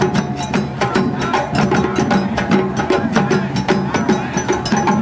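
Percussion music: fast, dense drum and stick hits, several a second, with short pitched notes over them.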